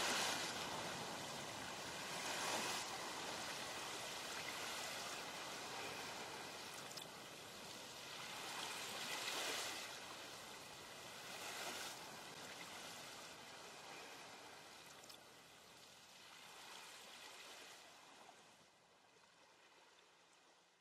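Rushing water ambience in the soundtrack, swelling and easing now and then, fading out near the end.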